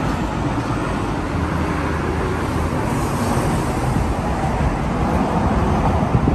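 Street traffic: vehicles passing on the road, a steady rumble of engines and tyres.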